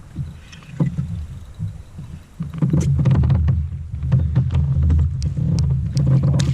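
Fishing kayak moving on the water: a low rumble that grows louder about two and a half seconds in, with scattered clicks and knocks over it.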